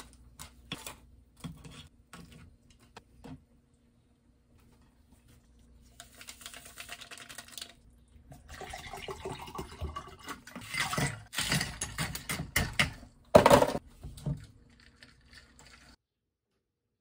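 Water poured from a plastic bottle into a tall glass, with scattered clicks and taps of handling the bottle and glass, and a single sharp knock near the end.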